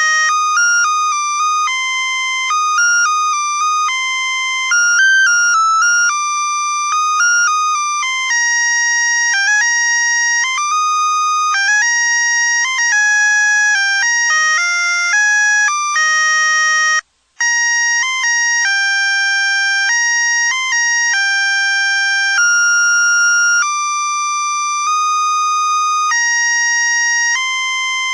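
Built-in melody chip of a string of Christmas lights playing electronic tunes in plain beeping tones, one note at a time. About 17 seconds in, it cuts out briefly and then carries on with the melody.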